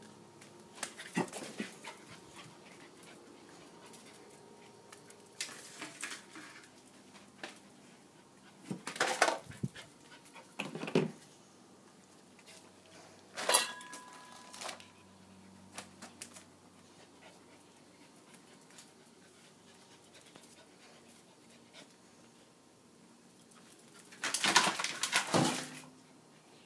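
Three-month-old Welsh Corgi puppy making scattered sounds as she runs about: short clicks and scuffles come and go, with a longer, louder burst near the end.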